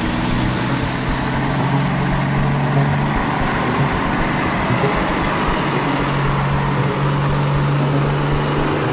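Truck engine running steadily with a low, even hum.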